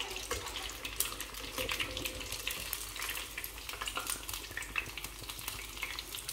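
Arancini deep-frying in hot seed oil: a steady sizzle thick with fine crackling pops.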